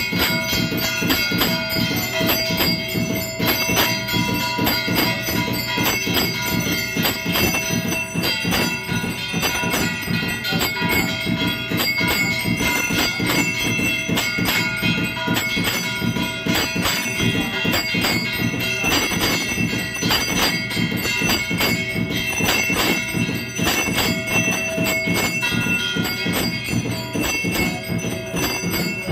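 Temple bells ringing rapidly and without a break for aarti, several metallic tones overlapping.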